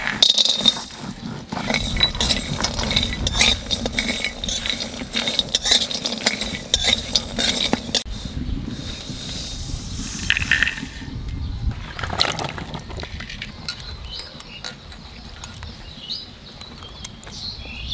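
Dried red chillies, coriander and cumin seed and almonds poured into an empty aluminium kadai and stirred with a metal spatula while dry-roasting: quick clinks, rattles and scraping on the metal pan. After a break of about eight seconds comes quieter water splashing as mushrooms are handled in a basin of water.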